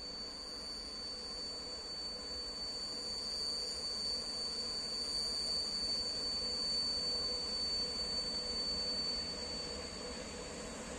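PKP class EP07 electric locomotive hauling an Intercity passenger train on its approach into the station, its rumble on the rails growing louder. A steady high-pitched whine carries over it and fades near the end.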